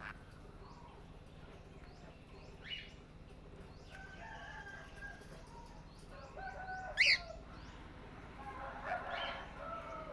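Birds calling: scattered short chirps and squawks, with one loud rising call about seven seconds in and a burst of calls near the end.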